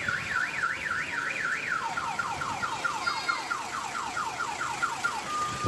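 Car alarm sounding and cycling through its tone patterns over a steady hiss. It starts as a fast up-and-down warble about four times a second. About two seconds in it switches to quick falling chirps, about five a second, and near the end to a steady single tone.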